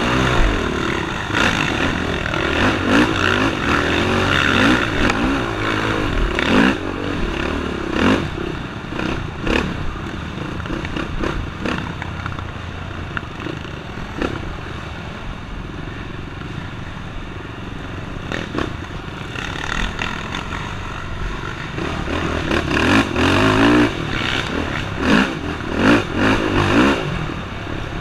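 Racing ATV engine heard close up from the quad itself, revving up and down over and over as the throttle is worked through the trail, with knocks and rattles from the chassis over bumps. The revving is busiest at the start and over the last several seconds.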